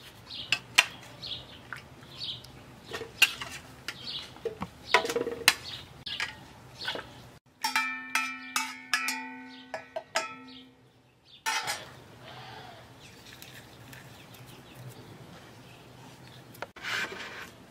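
Cooked tomatoes being spooned from an enamelware pot into a plastic blender jar: irregular clinks, scrapes and soft plops. About seven and a half seconds in, the enamel pot knocks against the jar with a short run of ringing metallic knocks as it is emptied.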